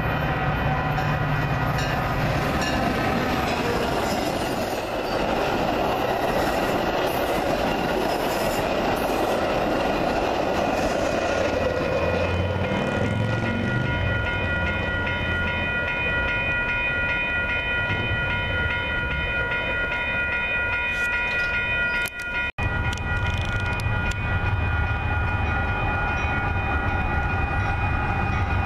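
Railroad grade-crossing warning bells ring steadily over the rumble and wheel noise of passing trains. First comes a Metra commuter train led by an F40PH diesel locomotive. After a break about 22 seconds in, freight diesel locomotives approach with a deeper engine rumble.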